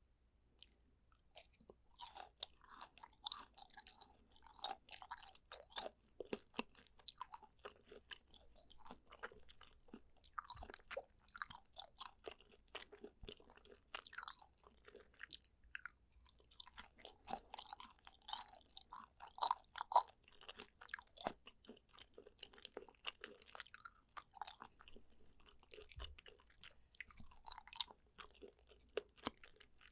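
A person chewing and biting chewy, gelatinous food right at the microphone: a dense, irregular run of small wet, sticky clicks and crunches, starting about a second and a half in.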